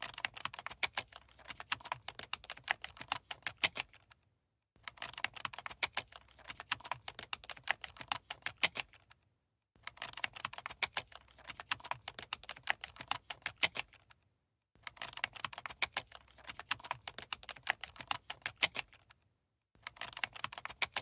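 Rapid typing on a computer keyboard, fast clicking in runs of about four seconds broken by short pauses, repeating evenly like a looped typing sound effect.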